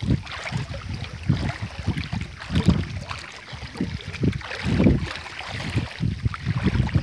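Wind buffeting the microphone in uneven low gusts, with a light hiss of moving air.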